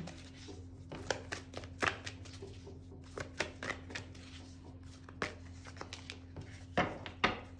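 Oracle cards being shuffled and handled by hand: irregular soft taps and slaps of the cards, with two sharper slaps near the end.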